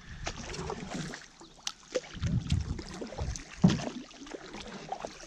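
Canoe paddles stroking through calm lake water: irregular dips and splashes with dripping, and a few sharp knocks.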